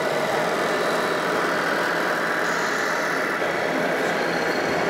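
Steady engine sound from a radio-controlled model truck driving on a layout, over the even din of an exhibition hall.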